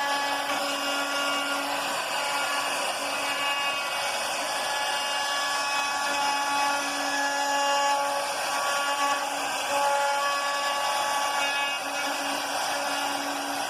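CNC router spindle cutting into a wooden board: a steady whine with tones that shift up and down as the bit works through the wood.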